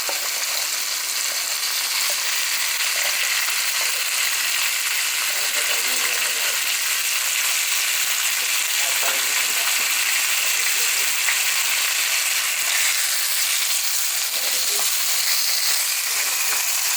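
Food sizzling steadily in a hot pan as it is stir-fried.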